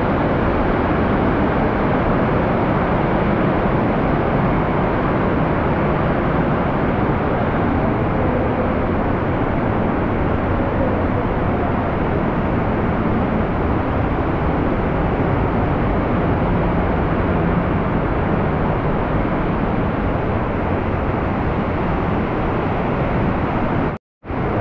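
Steady rush of wind over the microphone of a camera carried on a moving bicycle, an even noise with no tones in it.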